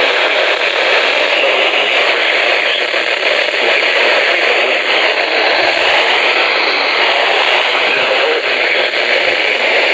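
Steady static hiss with a little crackle from a NOAA weather radio receiver, with no voice or tone on the channel.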